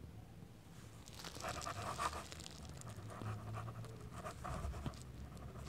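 Ballpoint pen scratching across paper in quick, irregular strokes as a handwritten signature is drawn, starting about a second in. The scratching is faint, over a low steady hum.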